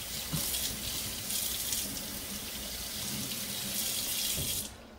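Kitchen tap running water into a sink, a steady rush that is turned off shortly before the end.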